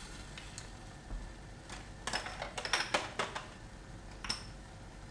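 A quick run of sharp clicks and taps as small spice containers are handled on the kitchen counter, bunched together about two seconds in, with one more click near the end.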